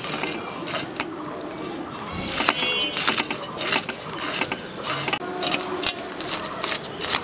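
Scales being scraped off a hilsa fish against the upright steel blade of a boti: a run of short, crisp rasping scrapes, roughly one every half second to a second, as the scales flake off.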